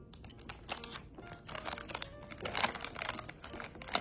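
Plastic toy packaging crinkling and rustling in the hands in irregular crackles, as a blind-bag toy is handled and opened.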